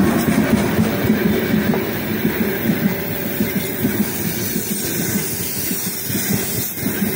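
Freight train's open-top wagons rolling past close by behind an electric locomotive: a steady rumble with irregular clatter of the wheels, easing off slightly as the train goes by.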